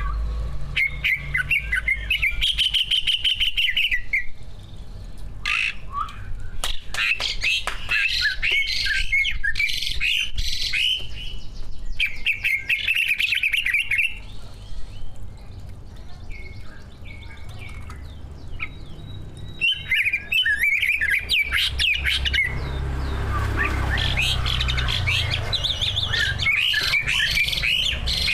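Cucak ijo (green leafbirds) singing in bursts of rapid, chattering and warbling phrases of a few seconds each, with a quieter stretch of several seconds midway. A faint low hum runs underneath.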